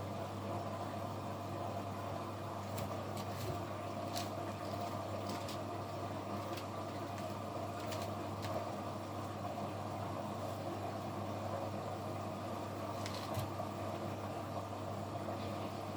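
Kunft washing machine running on a quick 15-minute 40° cycle: a steady hum with a few scattered light clicks.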